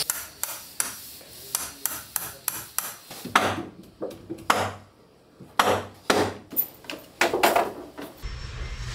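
Hammer striking wood: a run of irregular taps with several harder blows in between, as wooden trim is fitted along a cabin beam.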